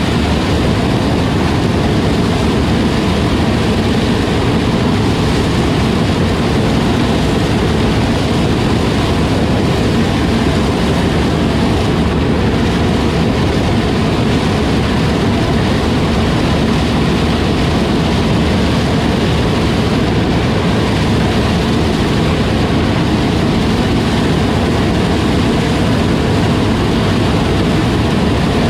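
Heavy farm machinery's diesel engine running steadily under load, an unbroken drone.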